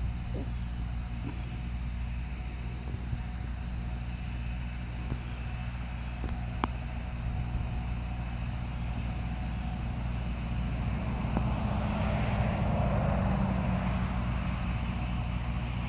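Engine of a self-propelled high-clearance crop sprayer running steadily as the machine drives across the field, getting louder from about eleven seconds in as it comes closer. A single sharp click near the middle.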